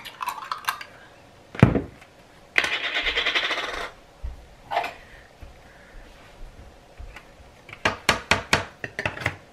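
Metal spoons and kitchenware clinking. There is a single knock, then a short rattle, and near the end a quick run of spoon taps on a jar or dish, about four a second.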